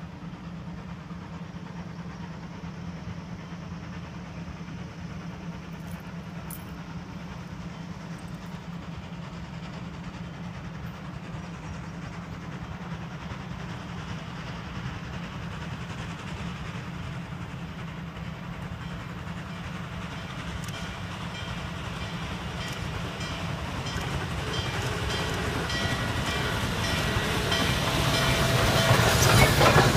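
Norfolk & Western 611, a 4-8-4 J class steam locomotive, approaching with its train. It is faint at first and grows steadily louder over the last ten seconds as it comes close, with a regular beat becoming clear.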